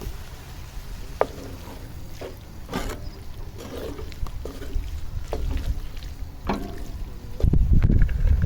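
Wind buffeting the microphone, with scattered light clicks and knocks; the wind noise grows louder near the end.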